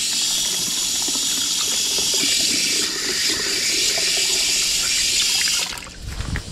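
Tap water running from an outdoor faucet's hose-splitter valve into the plastic tank of an electric toy water gun: a steady rush that stops shortly before the end, followed by a few low knocks.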